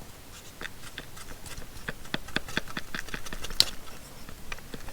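Milwaukee M18 Fuel oscillating multi-tool (2836-20), battery off, being shaken by hand: a string of irregular light clacks and knocks, several a second, as the motor rattles back and forth inside the housing. It is the sign of a motor not held tight in its casing.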